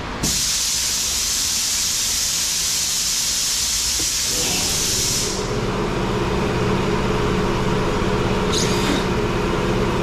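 A loud, steady hiss of escaping air for about five seconds that cuts off suddenly, over a steady low machine hum that carries on.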